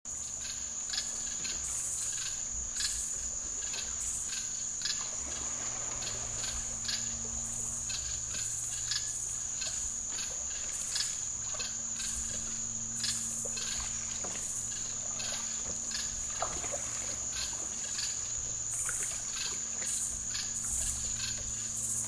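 Night insect chorus of crickets: one unbroken high-pitched trill, with short repeated calls about once or twice a second over it.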